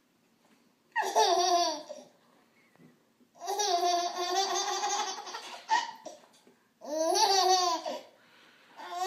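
A baby laughing in three high-pitched bursts, the middle one the longest.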